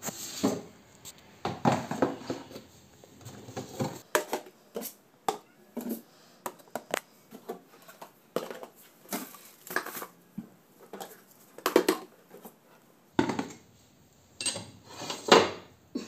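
Plastic food containers and jars knocking and clattering as they are lifted off refrigerator shelves one after another: a string of irregular knocks and clunks.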